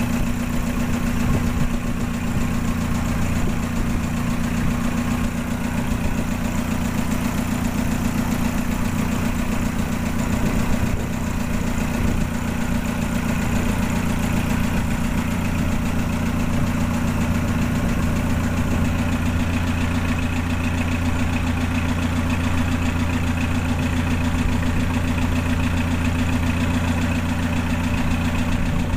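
Inboard engine of a wooden fishing boat running steadily while the boat is under way, a constant low engine drone with no break.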